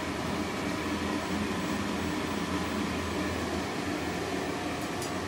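Steady fan whir with a low hum from several running diode laser engravers and the enclosure's ventilation, at an even level throughout.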